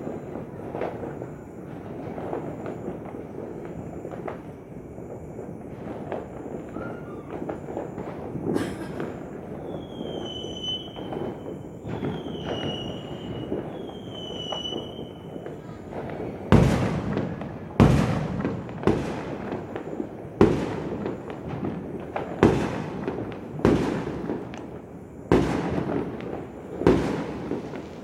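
New Year's fireworks going off: from about halfway through, a run of sharp, loud bangs, roughly one a second, each with a short fading tail. Before them there is a steady background din with three short high tones.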